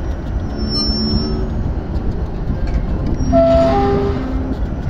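Diesel crane engine running with a steady low rumble while it lifts a steel railway wheelset. Twice, about a second in and more strongly past three seconds, short metallic ringing tones stand out.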